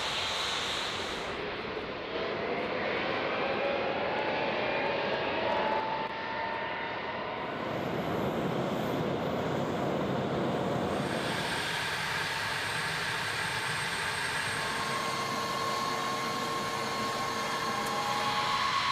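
Jet aircraft engines running: a steady rush with whines that glide upward in pitch in the first few seconds, then steady high whining tones. The sound changes abruptly a couple of times.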